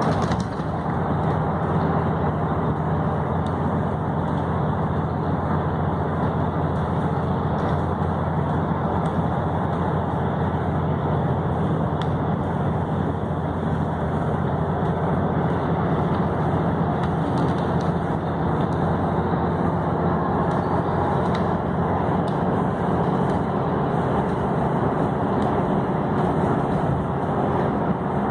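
Steady road noise of a car driving at highway speed: tyre roar and engine hum at an even level, without change.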